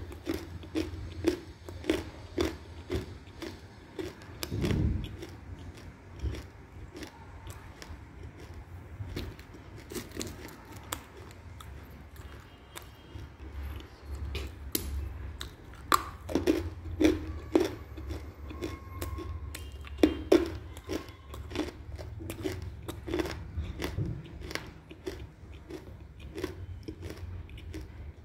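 Hard edible clay chunks being crunched and chewed in a mouth held close to the microphone: a long run of crisp, irregular crunches, about one to two a second.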